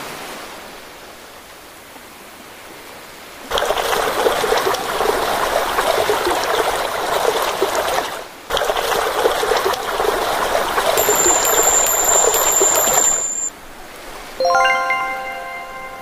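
Loud splashing, running water for about ten seconds, dropping out briefly about halfway, after a softer wash of surf at first. A bright chiming jingle rings near the end.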